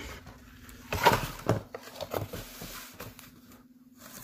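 Rustling and scraping of packaging as a laptop in a white protective sleeve is handled in its cardboard box: a cluster of short rustles about a second in, then smaller rustles and taps.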